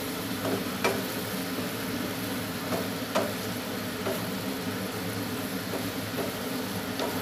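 Sautéed shrimp paste sizzling in a frying pan as it is cooked down to dry it out, stirred with a wooden spatula that gives a few light knocks and scrapes against the pan.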